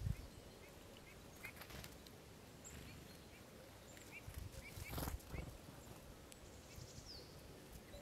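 Small songbirds calling faintly: a scatter of short chirps and a couple of thin, high, falling whistles, with a soft thump about five seconds in.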